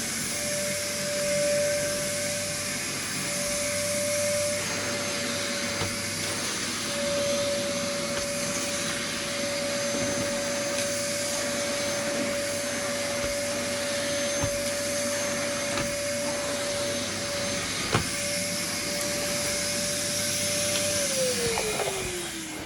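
Numatic Henry HVR200 1100-watt vacuum cleaner running steadily, its motor whine holding one pitch, with a single sharp click about eighteen seconds in. Near the end the whine falls in pitch as the motor winds down.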